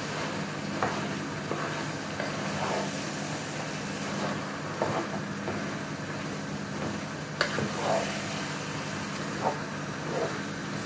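Minced beef with onions and green peppers sizzling as it browns in a large pot, cooking off its juices, while a spatula stirs it and now and then scrapes or knocks against the pot. A steady low hum runs underneath.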